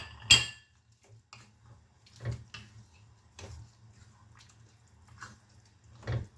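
A metal spoon clinks sharply against a cooking pan twice at the start, with a brief ringing tone. Softer scattered knocks and scrapes of utensil on pan follow, over a faint low hum.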